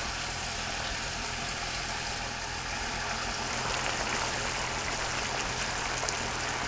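Minced mutton frying in a pan as blended tomato is poured in and stirred with a wooden spatula: a steady sizzling hiss that grows a little louder about halfway through.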